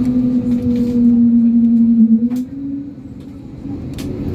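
Moaning 'whale' tone of the A321neo's Pratt & Whitney PW1100G geared turbofan, heard inside the cabin: a steady hum that steps up in pitch a little after two seconds in and then fades away, with a couple of faint clicks.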